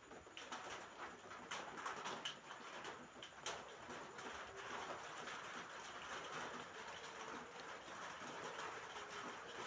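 Rain falling on a roof: a steady patter with many sharp drops and knocks, thicker in the first few seconds.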